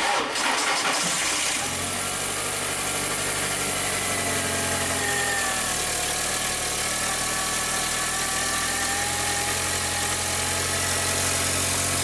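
A 2004 VW Jetta's 2.0-litre gas four-cylinder (BBW) starts at once and settles into a steady idle, with a thin whine over the engine note. It is running on a newly fitted fuel pump, which the mechanic takes to have cured its fuel-starved lean misfires.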